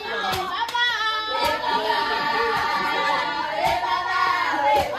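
A group of girls and women singing together, their voices held and gliding in a loud unison song, with sharp claps or stamps now and then.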